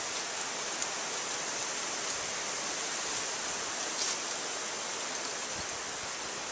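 Steady outdoor hiss, strongest in a high, even band, with a couple of faint ticks.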